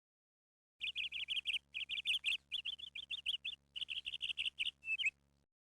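A small bird chirping in quick runs of repeated high notes, about eight notes a second, in four runs of roughly a second each, ending on a short slurred note.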